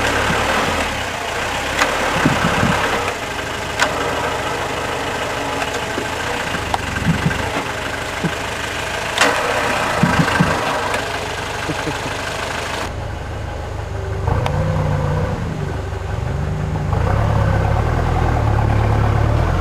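Off-road car engine running, with scattered knocks and clatter over the first two-thirds; after that the engine revs up and down a few times.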